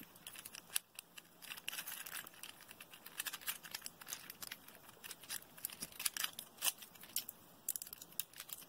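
Faint, irregular clicks and scratches of a small 3D-printed plastic toy being handled and turned over in the fingers.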